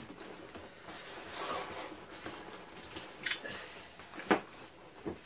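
Packing being handled: scratchy rustling of polystyrene packing peanuts and plastic wrapping. A few sharp clicks or knocks come through, the loudest about four seconds in.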